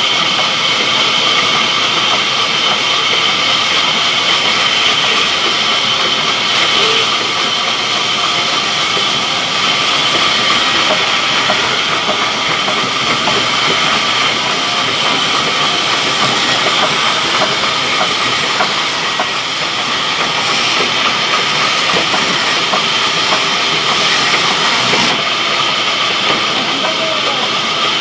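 Large belt-driven band saw ripping a long mango wood plank lengthwise: a loud, steady running noise with a constant high whine.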